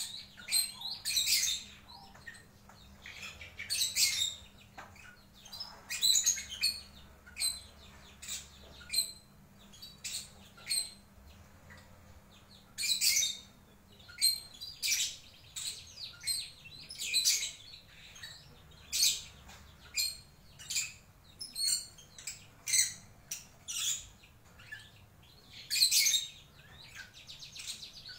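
A lovebird singing a string of short, high chirping phrases, about one a second with short pauses between them. The song is varied chirps, without a long chattering trill.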